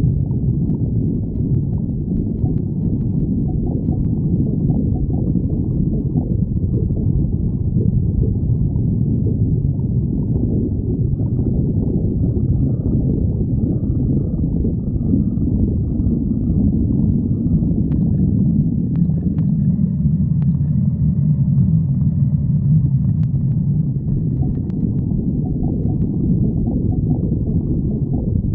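Stomach growling: a continuous low rumbling and gurgling, with a few faint clicks in the second half.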